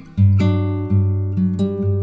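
Background music of plucked, ringing string notes, with a new note or chord about every half second.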